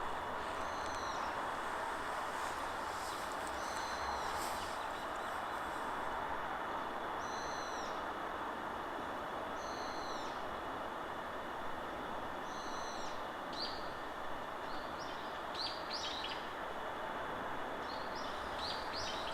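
Steady wind through forest trees, with a bird calling over it. A short arched call repeats every two to three seconds, then gives way to clusters of quick rising chirps in the last few seconds.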